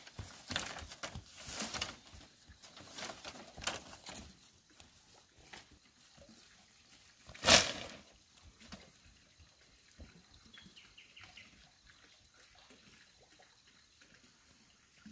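Split bamboo slats clattering and knocking together as they are gathered up from a pile, with one much louder clatter about seven and a half seconds in, then only a few light knocks.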